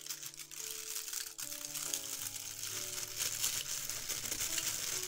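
Crinkling and crackling of baking/ironing paper being peeled back off a sheet of freshly ironed, fused plastic fuse beads, over quiet background music.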